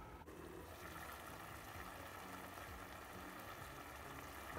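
Faint, steady hiss of liquid simmering in a covered pot.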